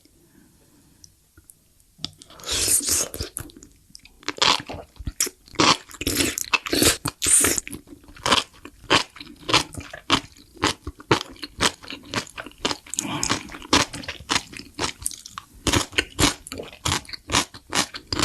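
Close-up eating of something crunchy: a bite about two seconds in, then rapid, loud crunching chews.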